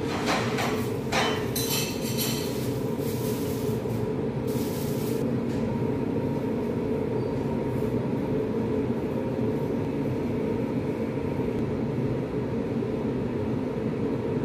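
A steady mechanical hum with a faint high tone running through it. A few sharp clicks and rustles come in the first couple of seconds and again around three to five seconds in.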